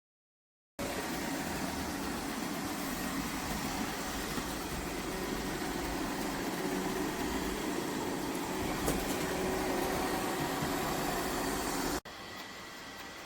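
Lefant robot vacuum running: a steady whir of its suction motor and brushes. It starts abruptly about a second in and cuts near the end to a quieter, similar whir.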